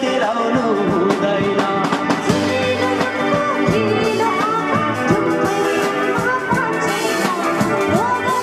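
A small band playing a song: voices singing over electric guitar.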